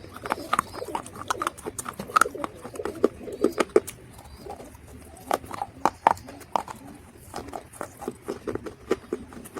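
Mud being crunched: a dense, irregular run of sharp crackles and snaps, some louder than others.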